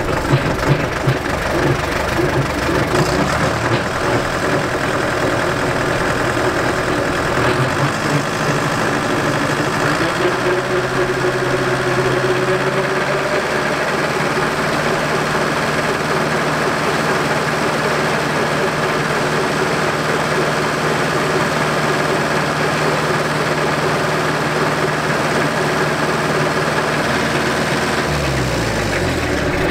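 A tractor engine drives a Bush Hog Model 305 rotary cutter through the PTO, with the cutter's gearbox and blade spinning. About ten seconds in it climbs to a steady full-speed drone, and near the end the pitch falls as it slows. The gearbox, freshly topped off with oil, runs with vibration that the owner puts down to a misaligned drive shaft and slip clutch.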